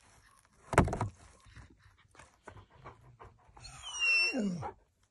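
Cat's teeth crunching and scraping on a raw rib bone, a run of sharp clicks with one louder knock about a second in. About four seconds in comes the loudest sound: a dog's wide yawn with a squeaky whine that falls steeply in pitch.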